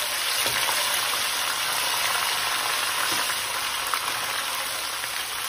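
Chopped tomato sizzling in hot oil with fried onions and whole spices in a nonstick kadai: a steady frying hiss. A slotted spatula stirring it gives a couple of soft knocks.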